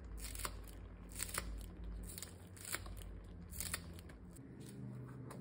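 Kitchen scissors snipping green onion stalks: about seven crisp snips, irregularly spaced and some in quick pairs.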